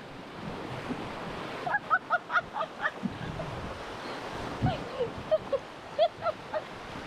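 Whitewater of a river rapid rushing steadily around an inflatable raft, with wind on the microphone. A woman's laughter breaks in twice in quick runs of short bursts, about two seconds in and again near the end.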